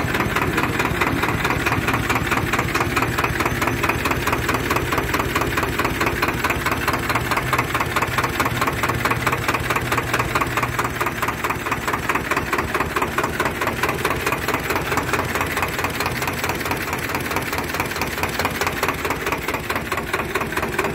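Turbocharged diesel engine of a Swaraj 724 tractor idling steadily, heard up close in the engine bay with an even, rapid chugging pulse.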